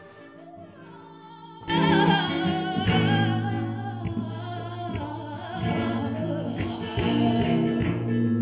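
A flamenco-style song sung by a woman. After a soft passage of held notes, the full accompaniment comes in loudly about two seconds in, under her voice.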